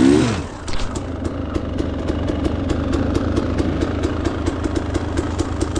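Dirt bike engine idling steadily, with a regular light ticking of about four to five clicks a second.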